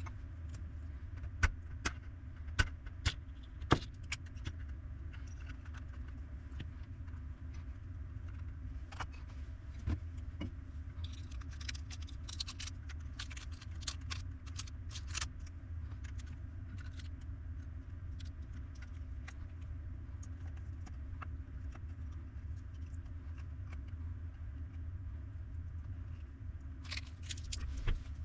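Small hard objects clicking and clattering as they are handled on a workbench: a few loud sharp clicks in the first few seconds, a busier spell of light clatter in the middle and a few more near the end, over a steady low hum.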